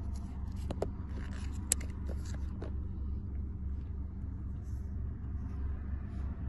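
Handling of an iPhone box and its cardboard and plastic packaging: a run of sharp clicks and crinkles in the first two or three seconds, then only a few faint ticks, over a steady low rumble.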